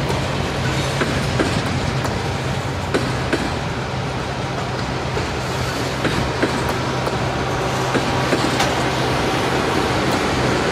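Refrigerated boxcars of a freight train rolling past, a steady rumble of steel wheels with irregular clicks and clacks over the rail joints and a low steady hum underneath.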